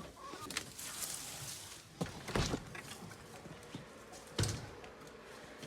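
A few scattered knocks and thumps: one about two seconds in, a quick pair just after, and a heavier thump a little past four seconds, with quiet between them.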